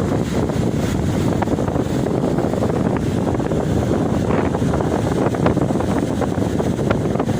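Ocean surf washing onto the beach in a steady rushing noise, with wind buffeting the microphone.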